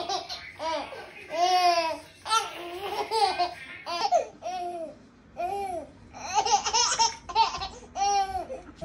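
A baby laughing and babbling in a string of short high-pitched squeals, each rising and falling, about one every half second.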